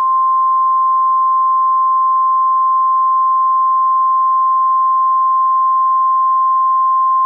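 NOAA Weather Radio warning alarm tone: a single steady 1050 Hz tone, loud and unbroken, heard through a weather radio receiver with a faint hiss underneath. It signals that a warning broadcast, here a severe thunderstorm warning, follows.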